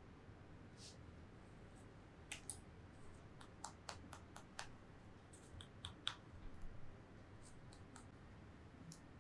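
Faint room tone with a run of light, sharp clicks and taps, irregularly spaced and most of them packed between about two and seven seconds in, with a few more near the end.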